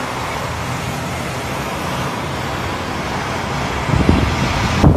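Steady rushing noise of a strong windstorm, with gusts buffeting the microphone from about four seconds in.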